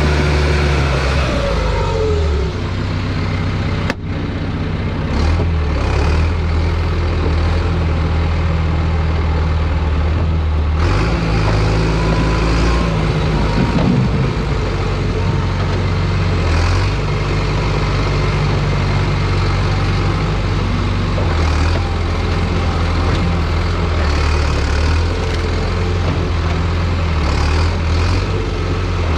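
John Deere bulldozer's diesel engine running hard while pushing logs. Its deep note shifts up and down several times as the load and revs change.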